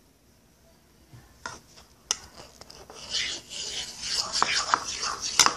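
Dry scraping and rubbing as a graham-cracker mixture is worked in a bowl, with a few light knocks at first and steady rasping from about halfway, ending in a sharp knock.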